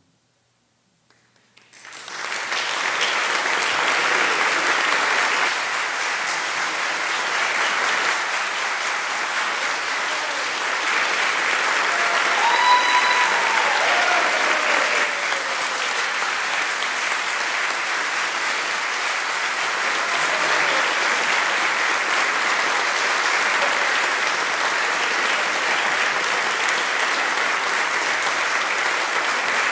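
Audience applause that breaks out suddenly after a second or two of silence at the end of a choral piece, then goes on steadily. A single voice calls out briefly about twelve seconds in.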